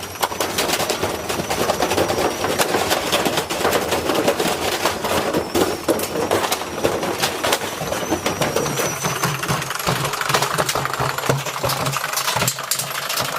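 Washing machine drum tumbling a load of metal tools: dense, rapid clattering and banging of metal against the drum over the machine's motor hum. The hum becomes steadier about halfway through.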